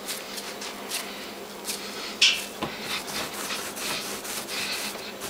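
Oiled hands rolling rosquete dough into a rope on a floured wooden table: soft, irregular rubbing and brushing of palms on dough and wood, with one sharper scuff a little over two seconds in.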